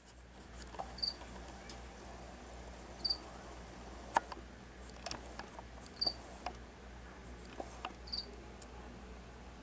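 Tree skinks (Egernia striolata) feeding from a plastic dish, making scattered small clicks and taps as they bite at isopods. The loudest click comes about four seconds in. A short high chirp repeats about every two seconds, over a faint steady high whine.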